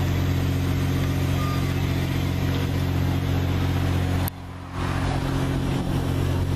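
A train's steady low mechanical drone beside the passenger cars, with one brief dip in level about four and a half seconds in.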